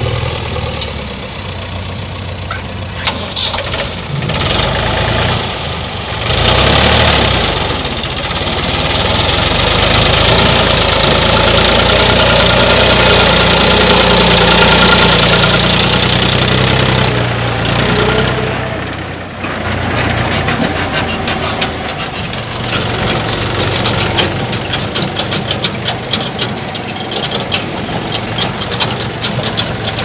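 Mahindra 265 DI tractor's three-cylinder diesel engine running. It grows louder for about ten seconds in the middle, then drops back to a steady knocking clatter as the tractor pulls away with its loaded trolley.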